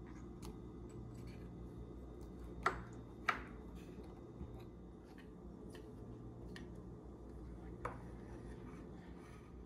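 Kitchenware handling: a few sharp clicks and knocks of utensils against dishes, two louder ones close together about three seconds in and another near the end, over a steady low hum.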